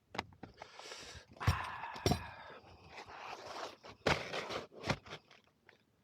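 Asphalt shingles being slid and scraped into place on a roof, with a few sharp knocks from the handling and work.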